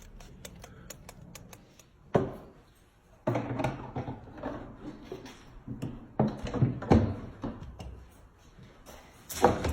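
Scattered knocks and thunks of handling work, with light clicks in the first two seconds and two sharper thumps, one about two seconds in and one near the end.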